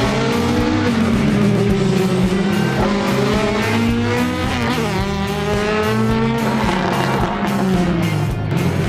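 Classic rally cars racing past with engines revving hard, pitch climbing through the gears about halfway through, mixed with background music that has a steady bass line.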